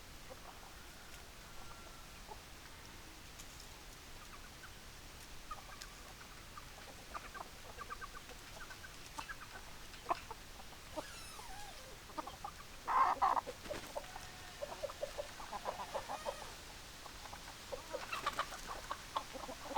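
Hens clucking: scattered short, soft clucks that grow more frequent in the second half, with one louder call about thirteen seconds in.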